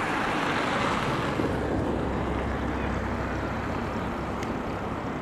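Road traffic noise: a passing vehicle's tyre hiss swells in the first second or two and slowly fades, over a low hum.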